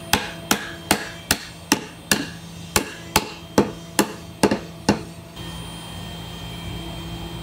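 A mallet tapping a wooden board in about a dozen evenly spaced knocks, roughly two and a half a second. The knocks stop about five seconds in, leaving a steady low hum.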